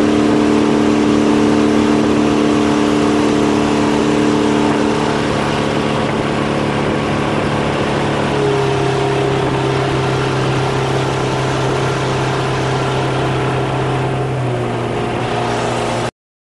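Boat engine running steadily while the boat is under way. Its pitch steps lower about five seconds in, again about eight seconds in and once more near the end, and the sound cuts off abruptly just before the end.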